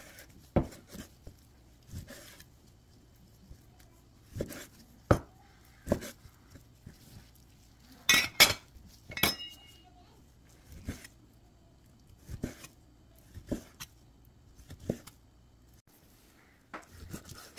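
Cleaver blade knocking on a wooden cutting board as it slices through raw chicken breast: separate knocks roughly a second apart, with a louder, sharper cluster about eight seconds in.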